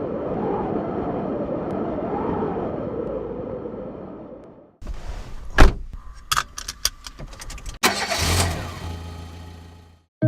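A vehicle engine running steadily with slowly wavering pitch. After a sudden cut come a string of sharp clicks and knocks with one loud thump, then a low engine hum that fades near the end.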